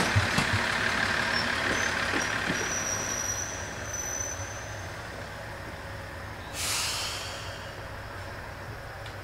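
Niigata Transys diesel railcar running slowly and growing quieter, with a thin high squeal a few seconds in. About seven seconds in, a short burst of air-brake hiss.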